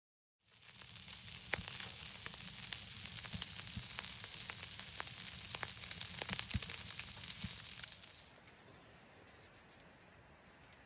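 Water spraying from a shower head: a steady hiss with scattered small splashes, which stops about eight seconds in, leaving a faint hiss.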